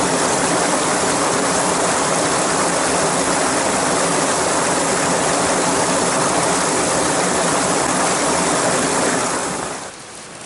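Heavy rain pouring down as a loud, steady rush, fading away near the end.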